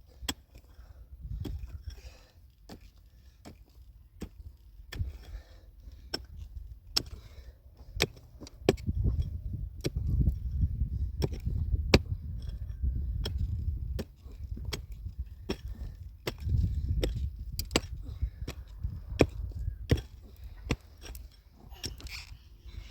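Irregular sharp knocks and taps, often one or two a second, like work with a tool, over a low rumble that comes and goes.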